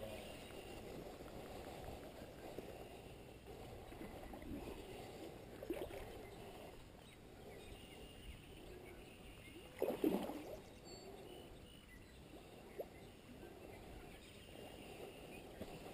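Faint water splashing and sloshing from a hooked fish being played in the shallows, with one louder, brief splash about ten seconds in.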